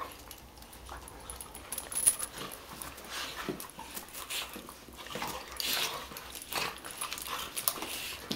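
A Weimaraner and a Vizsla play-wrestling: irregular scuffling and dog play noises, with one sharp, loud snap about two seconds in.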